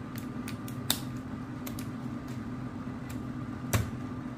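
Scattered small plastic clicks and taps as keycaps are worked off a mechanical keyboard with a keycap puller, the sharpest about a second in and a duller knock near the end, over a steady low hum.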